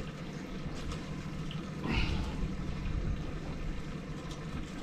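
Faint water splashing as a mud crab is worked out of a wet crab pot, over a low steady hum, with a brief hiss about two seconds in.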